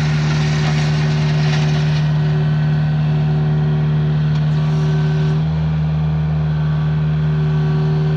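Mini excavator's diesel engine running steadily under a constant hum, its low note getting a little heavier about five seconds in.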